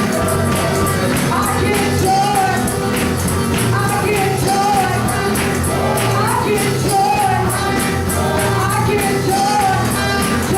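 Gospel praise music: voices singing a melody over a steady beat, with a tambourine shaken in rhythm and a sustained bass line.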